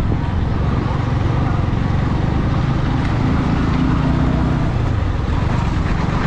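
Motorcycle running steadily at riding speed, with a dense low rumble of wind on the microphone over the engine.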